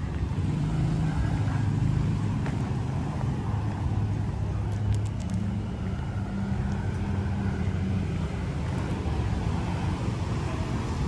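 Street traffic passing: a steady low hum of vehicle engines and tyres, with a few faint clicks about five seconds in.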